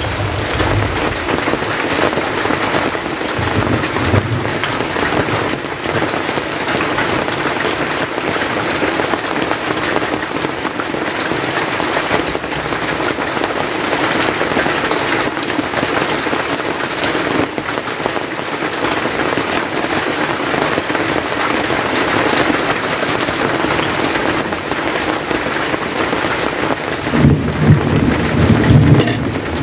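Steady rain falling on a plastic tarp roof and wet ground, with a louder low rumble near the end.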